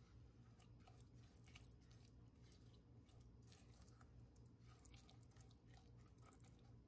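Faint wet squelching and scraping as a silicone spatula stirs a thick yogurt-and-spice paste around an enamelled cast iron pot, in many short irregular strokes.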